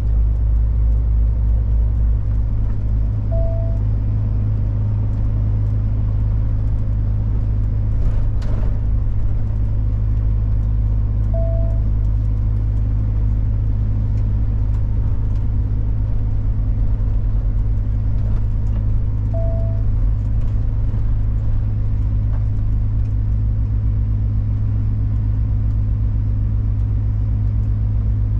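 A big truck's diesel engine running steadily, heard inside the cab as a low, even drone. Three short beeps come about eight seconds apart, and there is a single click about eight seconds in.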